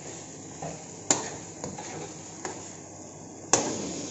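Long metal spoon stirring chicken in a karahi, knocking against the pan about five times over a steady sizzle of frying.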